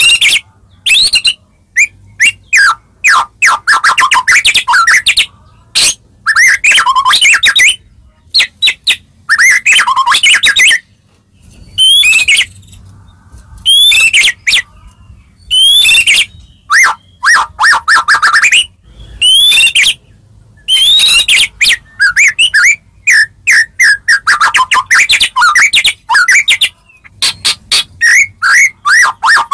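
White-rumped shama (murai batu) singing: loud, varied phrases of clear whistles, slurred rising and falling notes and fast runs of notes, each about a second long, with short pauses between them.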